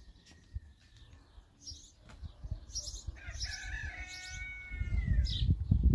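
Small birds chirping now and then, and a rooster crowing for about two seconds from around the middle, the call bending down at its end. A low rumbling noise comes in near the end.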